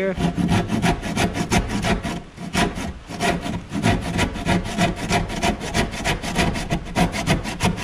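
Handsaw cutting through a wooden trim board with rapid back-and-forth strokes, several a second, keeping a steady rhythm until the cut is through.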